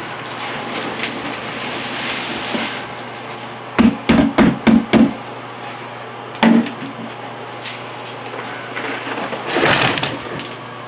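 Shovel work backfilling dirt into a pipe trench: scraping and rustling of dirt, a quick run of five dull thumps about four seconds in, a single thump a couple of seconds later, and a louder scrape near the end.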